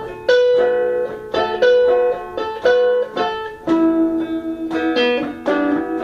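Guitar playing an instrumental passage between sung lines: a run of plucked notes and short strums, each ringing on.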